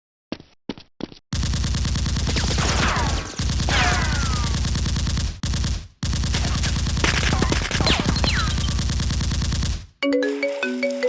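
Rapid automatic gunfire sound effect in long bursts, with high pings sliding down in pitch, preceded by a few short clicks. Near the end a marimba-like melody of short notes begins.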